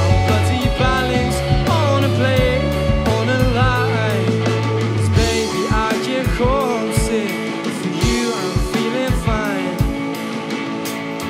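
A rock band playing: drums, bass and electric guitars with singing, a melody gliding above the steady drum beat. The low bass notes drop out about five seconds in.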